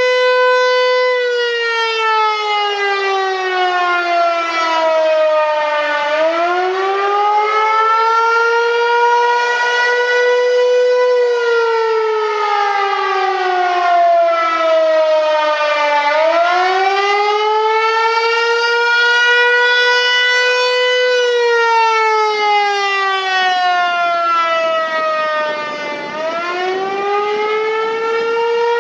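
Federal Signal 508 electromechanical outdoor warning siren sounding a wail during a scheduled test. Its single note slides down, climbs back up and holds at the top, about every ten seconds.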